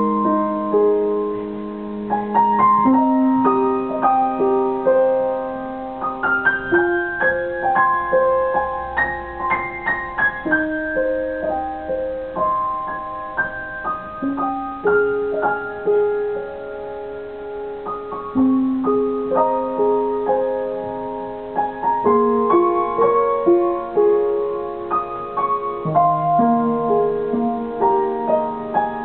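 Piano music: a melody over slow, held chords, with the bass note changing every few seconds.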